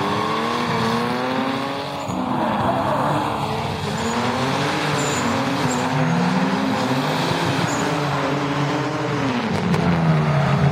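Drift car engine revving hard, its pitch rising and falling again and again as the car slides past, with tyre squeal and skidding under it.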